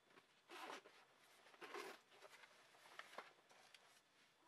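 Quiet handling sounds: two soft rustles in the first half, then a few light clicks about three seconds in.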